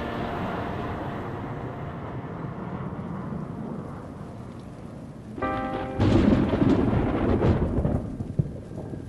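A loud sound-effect thunderclap breaks about six seconds in and rumbles for about two seconds over falling rain, after a steady rushing noise.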